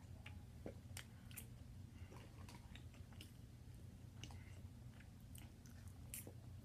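Faint chewing and crunching of salad, with scattered light clicks of a fork picking at a clear plastic container, over a low steady hum.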